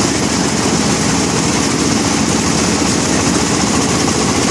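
Compact rice combine harvester (Crown CCH-7130 Hornet) running steadily and loudly, its engine held at full throttle to drive the harvesting and threshing machinery.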